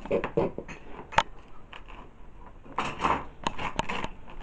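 Handling noise of a camera held right against the microphone: scattered sharp clicks and rustles, with a loud click about a second in, a burst of rustling about three seconds in, and a quick run of clicks near the end.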